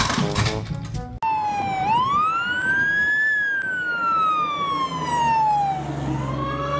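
Siren wailing in one slow sweep: it starts abruptly about a second in, rises in pitch for a couple of seconds, falls slowly for about three seconds, then begins to rise again near the end.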